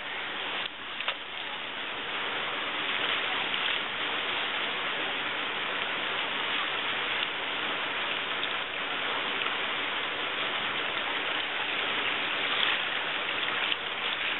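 Flowing river water: a steady rushing hiss, with a couple of faint knocks about a second in.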